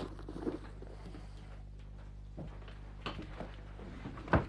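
Low steady hum with a few faint rustles and light knocks of a person moving about and handling things, then a single louder thump near the end.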